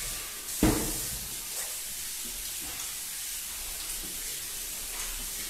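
Kitchen tap running into the sink as hands are washed under it, a steady hiss of water, with a single sharp knock about half a second in.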